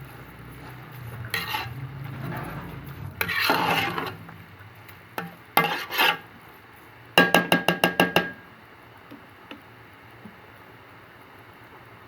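Metal kitchen utensils clinking and scraping against a pot: a scrape about three seconds in, a few knocks, then a quick run of about eight sharp metallic taps with a ringing note.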